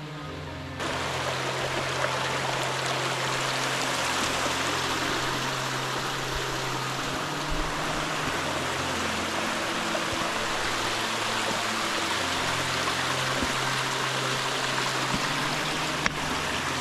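Rushing water of a mountain stream, a steady loud rush that cuts in suddenly about a second in. Low held notes of background music run faintly underneath.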